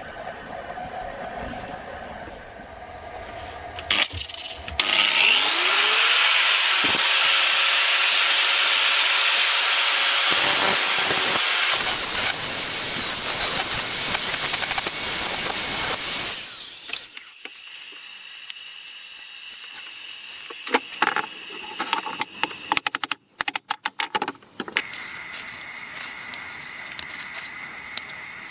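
Angle grinder with a sanding disc spins up about five seconds in, grinds steadily on the old wooden knife handle for some twelve seconds, then runs down. Afterwards come a few light clicks and taps of handling.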